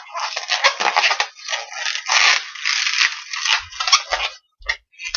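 Inflated orange latex modelling balloon being twisted and handled into small loop twists, its skin rubbing and squeaking against itself in a run of irregular bursts.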